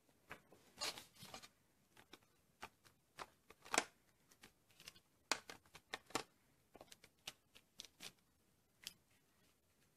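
Metal acrylic paint tubes and their plastic tray being handled and set down on a table, making scattered light clicks and taps. The loudest tap comes near four seconds in, and there is a quick run of taps around five to six seconds.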